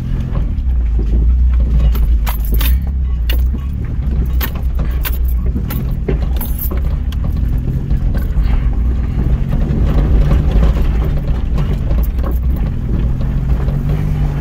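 Car driving slowly up a rough gravel road, heard from inside the cabin: a steady low engine and road rumble, with frequent clicks and rattles as the car rolls over loose stones. The engine note rises a little near the end.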